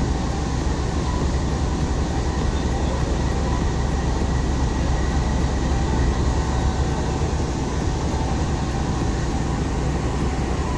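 GEU-20 diesel-electric locomotive's engine running steadily, a deep even drone, as the train pulls out of the platform.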